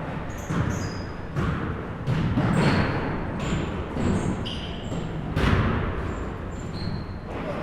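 Basketball game in a gym: a ball bouncing on the hardwood floor in irregular thuds that echo in the hall, mixed with many short high-pitched sneaker squeaks.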